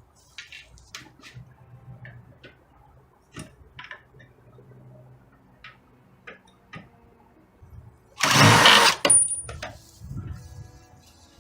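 Scattered clicks and light taps of handling work, then a loud rushing noise lasting about a second, a little past the middle.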